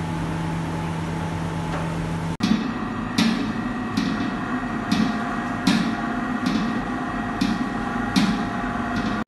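Commercial planetary stand mixer running with a steady motor hum, with a sharp knock about every 0.8 seconds as it turns while liquid is poured into the bowl. Before it, about two seconds of a different steady kitchen hum.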